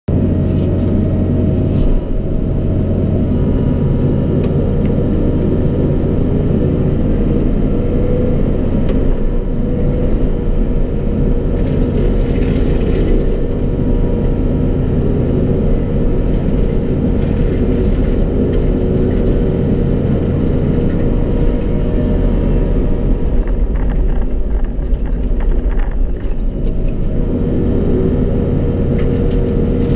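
John Deere 50D mini excavator's diesel engine running steadily under load while its boom-mounted hydraulic brushcutter head works, with a steady whine over the engine. Scattered sharper knocks and crackles come through a few times, most around the middle and near the end.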